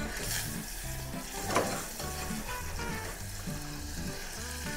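Butter melting and sizzling in a stainless steel saucepan over a grill's side burner, with a spoon stirring it and one sharp knock about a second and a half in. Quieter background music plays underneath.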